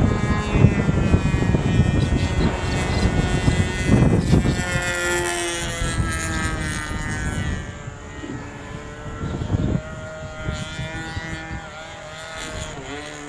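Radio-controlled Yak stunt plane flying overhead, its engine and propeller note sliding down and back up in pitch as it passes and manoeuvres, growing fainter after about halfway. A low gusty rumble of wind on the microphone runs under it, heaviest in the first half.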